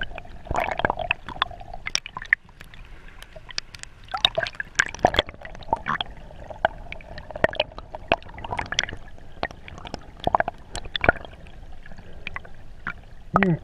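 Underwater sound picked up by an action camera in its waterproof housing: water sloshing and gurgling, with frequent irregular clicks and pops.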